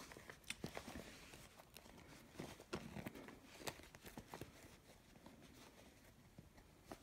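Faint, irregular small clicks and scrapes of hands working at a small case that is hard to open.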